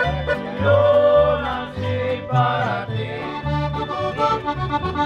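Mexican band music led by accordion over a bass line moving in short even notes, with guitar and some singing.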